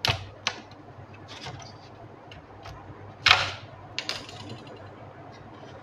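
Light clicks and scrapes of hands handling an HP ProBook 450 G1 motherboard in its plastic base, a handful of short knocks with one longer, louder scrape about three seconds in.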